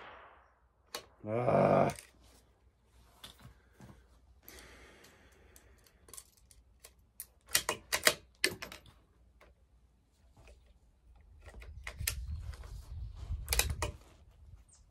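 A bolt-action .22 rimfire rifle being handled between shots: a run of light metallic clicks and clacks as the bolt is worked and a round chambered, with a brief pitched sound about a second in.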